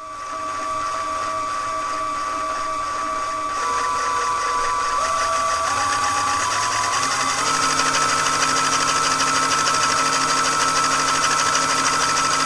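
Small LEGO Power Functions M electric motor spinning the fan of a LEGO 747 jet-engine model: a steady motor whirr that steps up in pitch several times between about 3.5 and 7.5 seconds in as the speed control is turned up, then holds at the higher speed.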